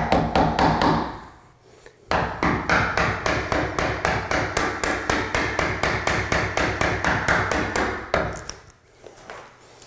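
A hammer tapping a wood chisel to cut the latch strike mortise into a wooden door jamb: a few taps, a short pause, then a long run of quick, even taps.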